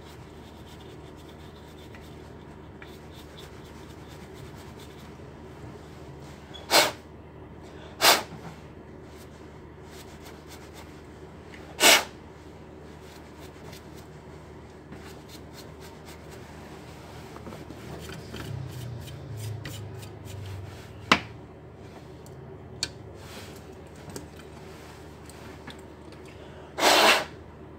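Acer Nitro laptop's cooling fan being cleaned by hand: a few short, sharp scrubbing bursts and a single click over a steady low hum.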